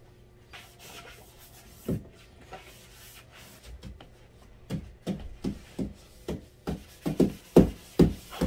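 Damp Magic Eraser melamine sponges scrubbing a painted wall: rubbing strokes, a few scattered at first, then settling after about four and a half seconds into a steady rhythm of about three strokes a second that grows louder.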